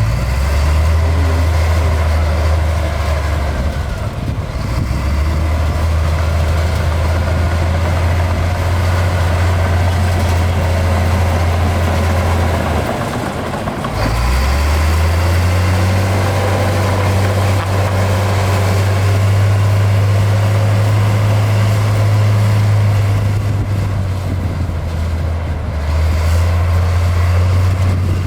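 Heavy diesel earthmoving machinery running steadily with a low drone. The engine note dips briefly about 13 seconds in, then returns higher in pitch for several seconds before settling lower again near the end.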